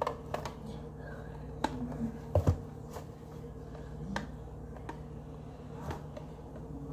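Scattered clicks and knocks, about seven, of a red electric hand mixer's metal beaters being pushed and fiddled into their sockets because they keep falling out; the loudest is a double knock about two and a half seconds in. A steady low hum runs underneath.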